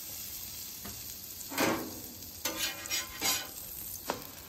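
Butter and egg-in-a-hole bread frying on a flat-top griddle, a steady sizzle. Over it a spatula scrapes across the griddle surface about four times as it is worked under a slice, with a short sharp tap near the end.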